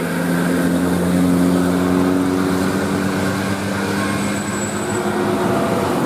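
Bus telolet horn, a multi-tone musical air horn, holding low chord-like notes for about three seconds and then sounding shorter, fainter notes, over the noise of the vehicle.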